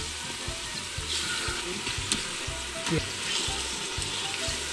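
Minced garlic and onions sizzling in hot olive oil in the steel inner pot of an Instant Pot on sauté, as strips of raw beaver meat are laid in to sear. A sharp click about two seconds in.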